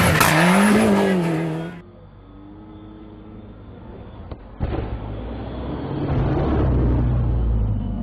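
Racing engines on track, heard across several cut-together clips. In the first couple of seconds one engine's pitch rises and then falls as it passes. After a quieter stretch, a louder, lower engine sound starts about halfway through.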